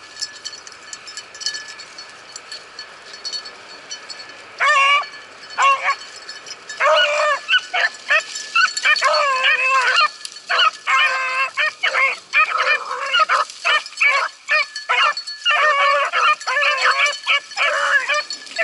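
Beagles baying, starting about five seconds in and soon with several hounds' voices overlapping in a steady run of drawn-out bawls: the pack in full cry on a rabbit's trail.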